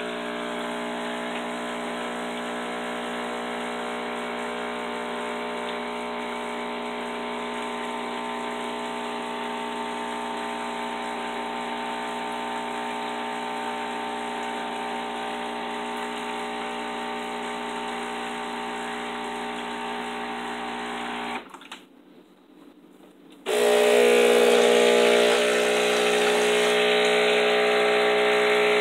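Breville Barista espresso machine's pump humming steadily as it pushes descaling solution through the group head, stopping on its own about 21 seconds in. After a pause of about two seconds, a louder hum with a hiss starts as the steam wand is opened to flush it.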